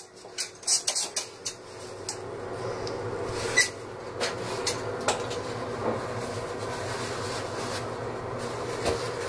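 A steady low mechanical hum. A run of sharp clicks and knocks comes in the first second and a half, and a few single clicks follow later.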